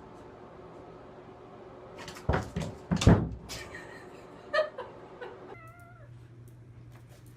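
A cat: two loud, harsh cries about two and three seconds in, then two short meows, the last one wavering.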